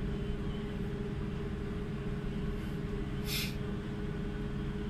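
Car ferry's engines running steadily under way, a low hum with a rumble beneath it. A short hiss about three seconds in.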